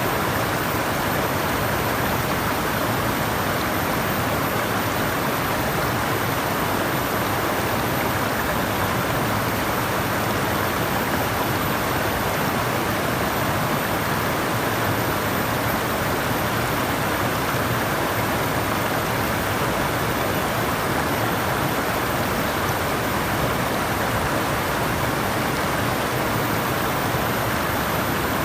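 Flowing water rushing steadily, an even unbroken hiss with no separate splashes or drops.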